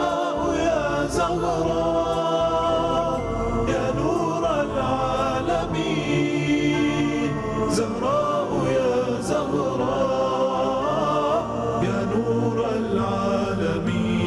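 Arabic devotional song (nasheed) carrying on between its sung verses: voices singing a melody in chorus.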